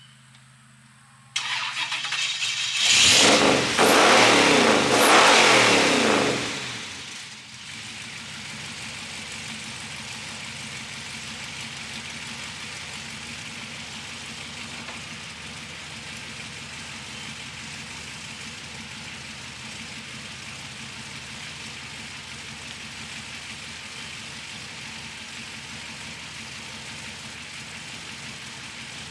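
1937 Ford race car's engine starting about a second in and being revved hard for a few seconds, its pitch rising and falling. It then settles into a steady idle.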